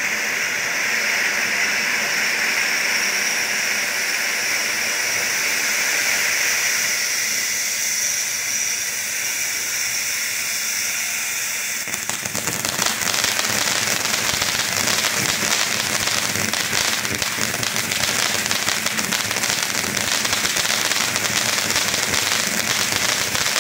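Major League Pyro's Maximum Overdrive ground fountain firework burning. It gives a steady hiss for about twelve seconds, then switches suddenly to dense crackling for the rest of its burn.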